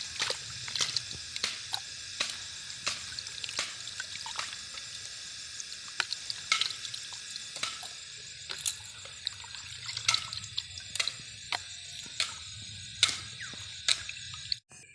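Water splashing and dripping in many small, irregular splashes over a steady watery hiss.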